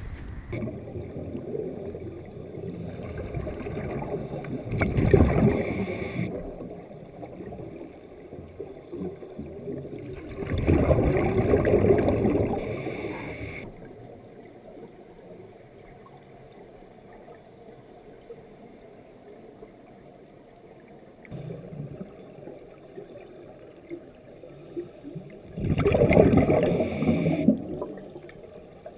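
Scuba regulator exhaust bubbles rushing and gurgling past an underwater camera housing in bursts a second or two long, three times, with a low steady underwater rumble between them.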